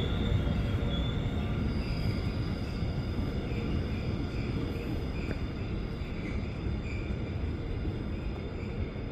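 Train running on the tracks: a steady low rumble that eases slowly, with faint steady high-pitched whines above it.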